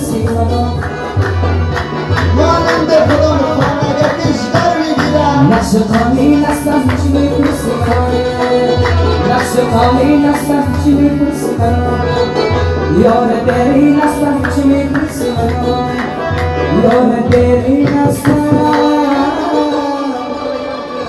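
Music: drumming over a steady pulsing bass, with a melody line that slides up and down in pitch.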